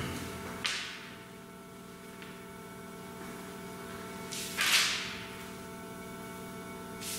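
Steady electrical hum with two short hissing swells: a faint one just under a second in and a louder one about halfway through.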